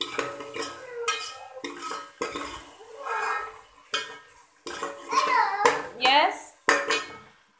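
A steel ladle stirring and scraping chicken and masala in an aluminium pot, knocking and clanking against the metal as the chicken browns in the oil. High squeals that glide up and down come about five to six seconds in and are the loudest part.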